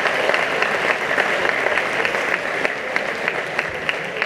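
Arena crowd applauding, a steady patter of many hands with individual sharp claps standing out.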